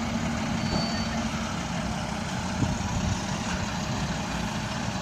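Steady rumble of idling vehicle engines, with a low hum that fades out about halfway through.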